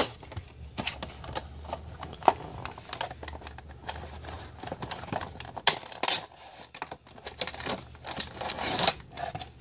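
A Funko Pop cardboard window box being opened by hand, its clear plastic insert crinkling and rustling, with irregular clicks and taps.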